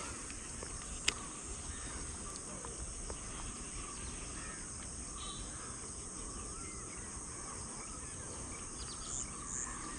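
Steady high-pitched insect chorus, with faint scattered bird chirps and one sharp click about a second in.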